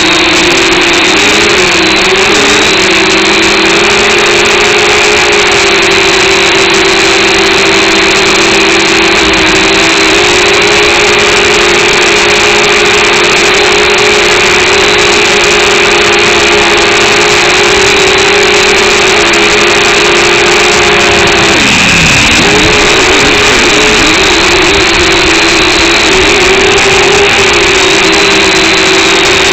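Quadcopter drone's motors and propellers buzzing loudly and steadily, with a brief sharp drop in pitch about three-quarters of the way through before it climbs back up.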